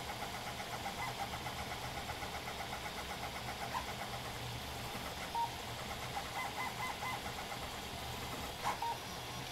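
Stepper motors of a Printrbot converted to a Hypercube CoreXY 3D printer, chirping and whirring as the print head darts back and forth at high speed with its feed rate raised to 250%. It is a fast rhythm of short motor tones, with a few brief beeps in the middle and a click near the end.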